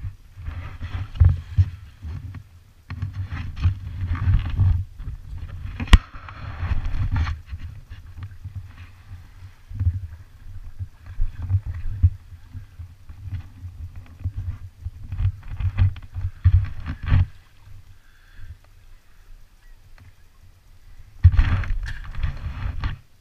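Water slapping and sloshing against the hull of a floating personal watercraft in irregular bursts. There is a sharp knock about six seconds in.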